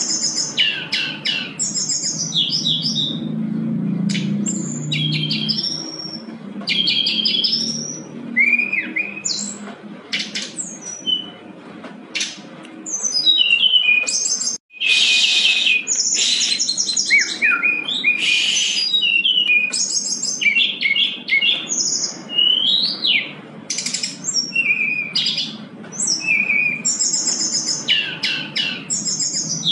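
Brown-chested jungle flycatcher singing continuously and vigorously: a rapid string of varied clear whistles, short trills and rising and falling notes with hardly a pause.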